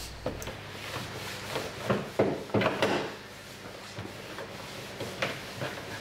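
Plastic retaining clips of a 2011 Chevy Silverado 1500 interior door panel popping loose as the panel is pulled from the door: a quick run of four sharp snaps and knocks about two seconds in, and one more near the end.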